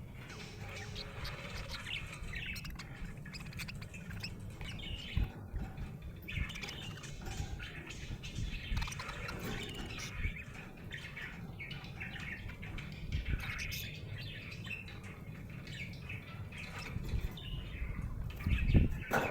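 Budgerigar chattering without pause in a steady stream of short chirps and warbles, the contented chatter of a happy budgie. A few low thumps come near the end.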